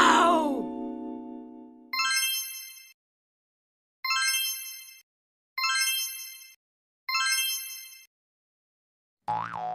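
Cartoon sound effects: a falling pitch glide fades out, then four bright chime dings of about a second each ring out one after another, spaced about a second and a half to two seconds apart. Near the end a springy boing begins.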